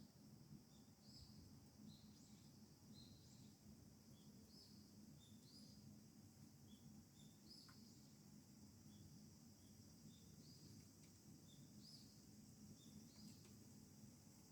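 Near silence with faint bird chirping: short high chirps repeat steadily, over a low steady hum.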